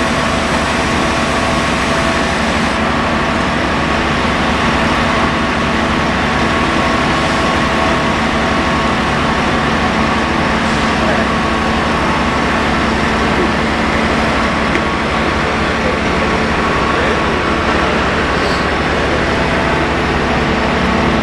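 Fire engine's motor running at a constant speed: a loud, steady drone that does not change.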